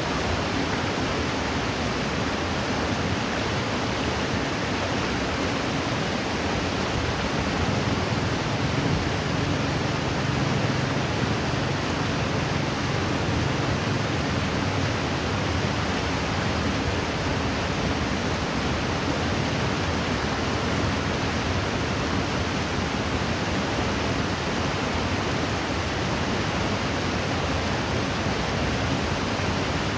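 Steady rush of river water flowing, an even hiss with no breaks.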